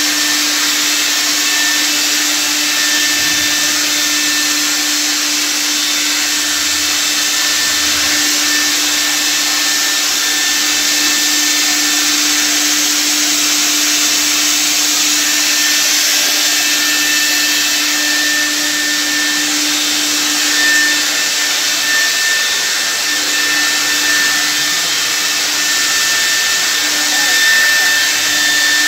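Handheld electric ULV cold fogger running continuously while spraying disinfectant mist: its blower motor gives a steady low hum and a higher whine over a loud rushing hiss.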